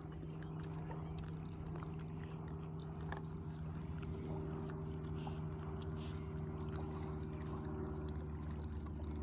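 Steady low motor hum, unchanging in pitch, with faint scattered clicks and brief high chirps over it.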